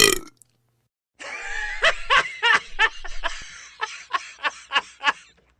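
A loud, long burp ends just as this starts. About a second later comes laughter, a run of about ten short 'ha' pulses that fade out near the end.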